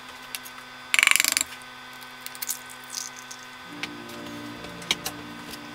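An egg being cracked into a plastic blender jar: a short crackling crunch of shell about a second in, followed by a few faint clicks.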